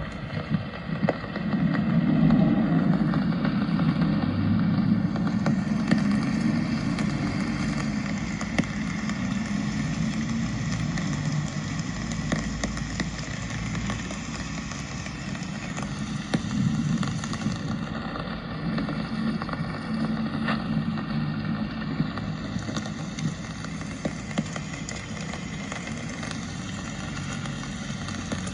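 Street ambience in the rain: an even hiss of falling rain with scattered small drop ticks, over a low, wavering rumble of traffic.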